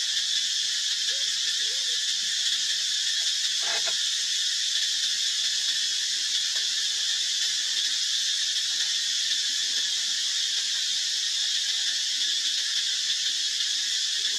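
Steady, high-pitched drone of an insect chorus, with one short sound about four seconds in.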